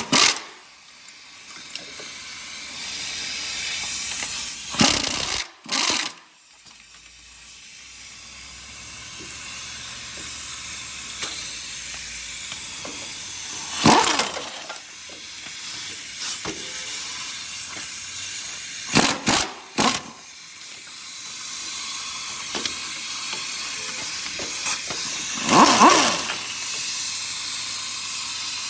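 Pneumatic air ratchet running oil pan bolts out: a steady hiss of exhaust air, broken by a few sharp metal knocks.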